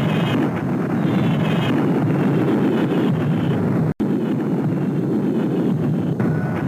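Steady, loud rumbling noise, like wind on a microphone, broken by a split-second dropout about four seconds in.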